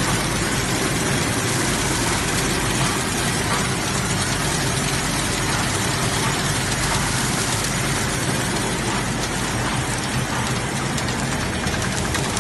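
Servo-driven chocolate packing machine running, a loud, steady, dense mechanical noise from its wrapping mechanisms.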